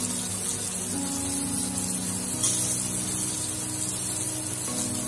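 Chicken wings sizzling in a ribbed grill pan with a steady hiss, under background music of held chords that change every second or two.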